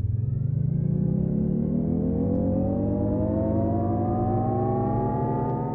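Jaguar I-Pace's electric-car pedestrian warning sound: a synthesized hum of several layered tones rising slowly and steadily in pitch, like a car speeding up.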